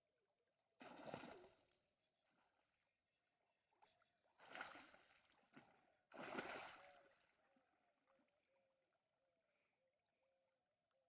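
Three short splashes in water, each under a second, the last two about two seconds apart, followed by faint repeated bird calls.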